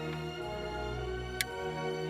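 Slow instrumental background music with long held notes. A single short click about one and a half seconds in.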